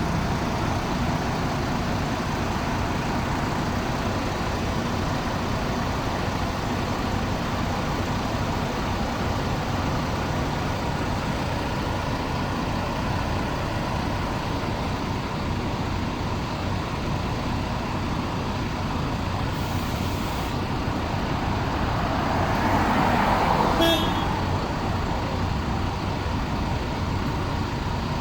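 Steady road-traffic noise, swelling briefly about three-quarters of the way through, with a single sharp click at the end of the swell.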